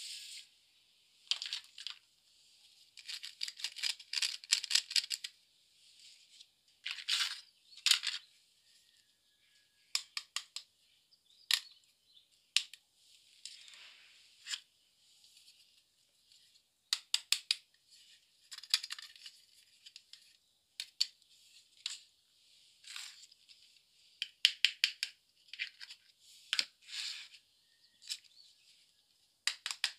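Small plastic toy hair-styling pieces handled and set down on a tabletop: sharp clicks and clatters, some in quick rattling runs, with brief rustling between.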